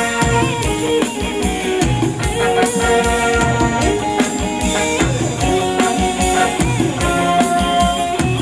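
Thai ramwong dance music played loud by a live band over a PA, with a steady drum beat under held melody and chord notes.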